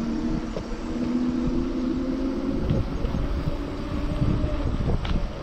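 Electric-assist bicycle in motion: a steady hum over a constant low rumble of tyres on asphalt and wind on the microphone.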